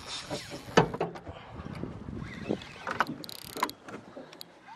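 Spinning reel being wound against a hooked fish: scattered clicks and knocks of the reel and rod handling over a light hiss of wind and water, with a brief higher hiss about three seconds in.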